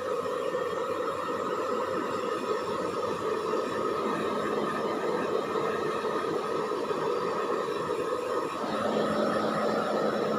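Handheld electric hair dryer blowing steadily, its tone shifting a little near the end.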